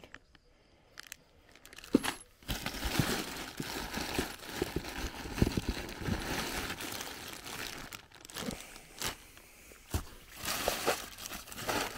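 Plastic bags crinkling as bagged drip-irrigation fittings are handled and rummaged through in a cardboard box. It starts about two and a half seconds in with small clicks, dies down for a couple of seconds, then picks up again near the end.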